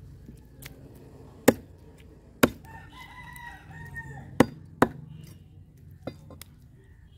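A heavy knife chops through common carp on a wooden log block: four sharp chops, with a few lighter knocks between them. A rooster crows once in the background about three seconds in, the call lasting nearly two seconds.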